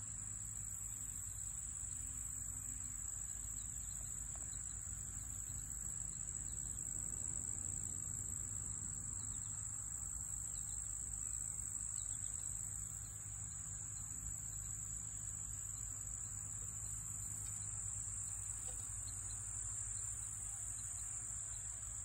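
Insects in the grass trilling in one unbroken high-pitched drone, steady throughout, with a low rumble beneath.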